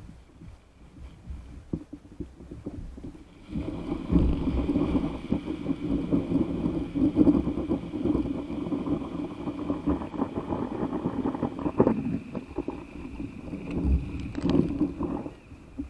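Sea water sloshing and slapping against an inflatable paddle board, picked up by a camera mounted low on the board, with a rumbling sound that grows louder about three and a half seconds in. Near the end there is a splash as the rider falls off the board into the sea.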